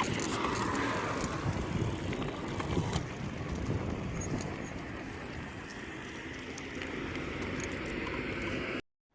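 Electric bicycle with a Bafang 8Fun 750 W motor running while ridden: a steady, rough mechanical noise with tyre and wind noise mixed in, which cuts off suddenly near the end. The uploader reports this noise and a rapid on-off surging of the motor under pedal assist, which goes away on the throttle alone.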